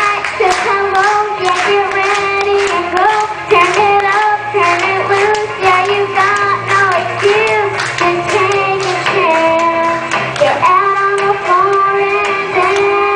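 A young girl singing into a microphone over a recorded pop backing track with a steady beat, amplified through the hall's speakers.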